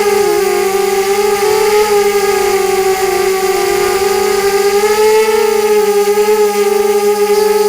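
FPV quadcopter's brushless motors and propellers whining steadily, the pitch wavering a little with throttle changes.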